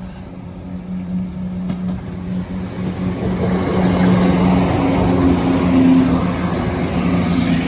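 Class 170 Turbostar diesel multiple unit passing over a level crossing: a steady diesel engine hum under a rush of wheel and rail noise that builds to its loudest about six seconds in.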